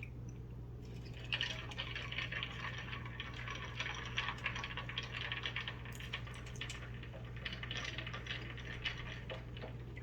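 Wet crackling with many small clicks, the sounds of eating close to the microphone, starting about a second in and running until near the end, over a steady low hum.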